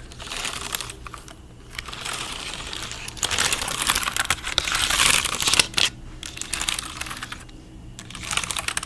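Computer keyboard keys being typed on quickly, a dense run of clicks. The clicking is busiest in the middle, eases off, then comes in a short flurry again near the end.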